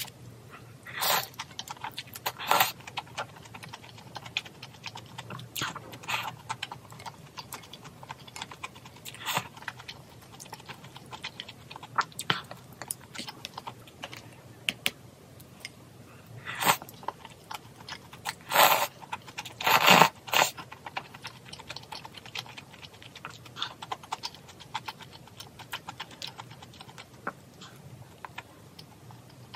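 Close eating sounds over a bowl of malatang: scattered small clicks of utensils with chewing, broken by a few louder, longer bursts near the start and about two-thirds of the way through.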